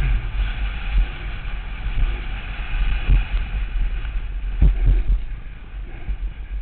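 Downhill mountain bike ride heard from a helmet-mounted camera: wind buffeting the microphone and a steady low rumble of tyres and frame over the dirt trail, with a few sharp knocks from the bike hitting bumps about three seconds in and again twice near the end.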